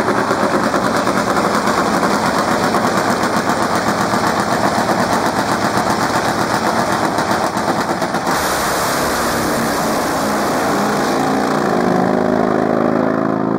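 Top Fuel drag-racing Harley V-twins running on nitromethane at the start line, very loud with a rapid, dense crackle of firing. About eight seconds in the sound changes abruptly as the bikes leave the line, and a steadier pitched drone takes over.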